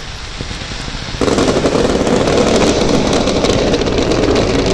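Fireworks crackling: a dense barrage of many rapid small pops breaks out suddenly about a second in and stays loud.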